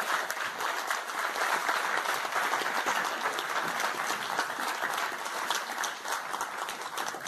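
Theatre audience and cast applauding steadily, a dense patter of many hands clapping.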